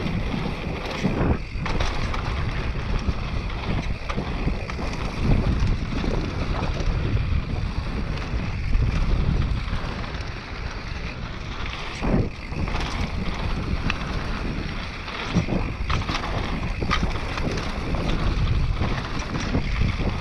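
Wind rushing over the microphone as a mountain bike descends a trail, with scattered short knocks and rattles from the bike.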